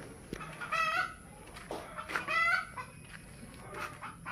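Ayam bangkok (Thai game fowl) chickens calling from their coops: two short calls, each rising then holding, about a second and a half apart.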